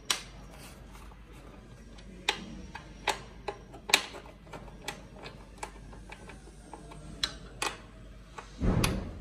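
Hex key turning the passenger footpeg bracket bolts on a Honda CB500X as they are loosened and backed out: scattered sharp metal clicks of the tool on the bolt heads and bracket, irregular, with a louder dull thump near the end.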